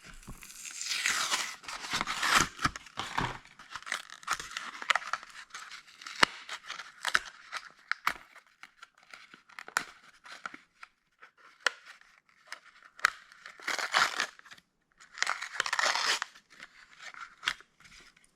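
A Matchbox die-cast car's card-and-plastic blister pack being torn open. Bursts of tearing and crinkling come at the start, again a little past halfway and in the last third, with many small clicks and taps of plastic being handled in between.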